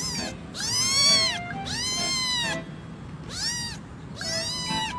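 Domestic cat meowing four times, each meow rising and then falling in pitch.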